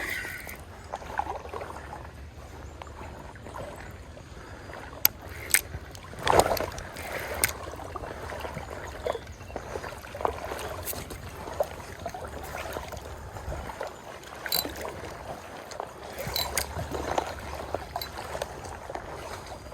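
River water splashing and sloshing as a hooked smallmouth bass is played on rod and line, with scattered sharp clicks and knocks, the loudest a few seconds in.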